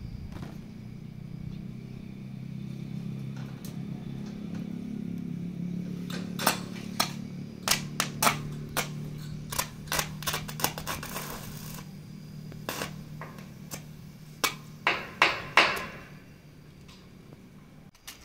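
Welding work on a hollow-steel roof frame. Irregular sharp metal taps and knocks begin about a third of the way in, and two short bursts of crackling arc come from tack welds. Under them a steady low hum stops near the end.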